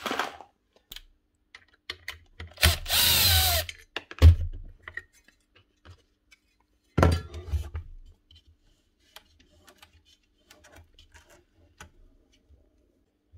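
Power drill-driver running in two short bursts, about a second near the start and a shorter one midway, with a falling whine as it slows, while taking screws out of the planer's belt cover. A sharp knock follows the first burst, and light clatter of parts being handled follows the second.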